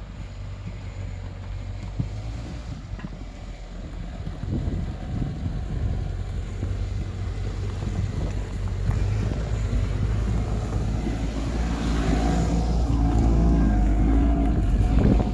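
ATV (quad bike) engine running as the machine drives slowly over snow, getting louder as it comes close; near the end the engine and exhaust are heard up close.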